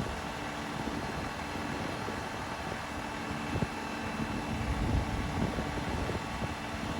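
Heavy harvest machinery engine running steadily, a constant hum over a low rumble.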